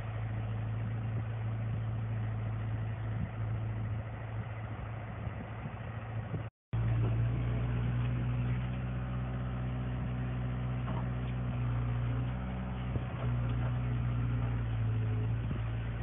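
CAT 313C hydraulic excavator's diesel engine running steadily with a low, even hum. The sound cuts out for an instant near the middle, then comes back slightly louder.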